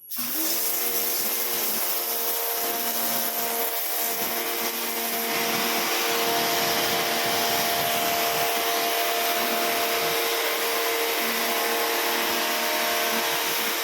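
Kawasaki pressure washer running steadily, its motor humming under the hiss of the water jet. The motor picks up speed right at the start, then holds an even pitch.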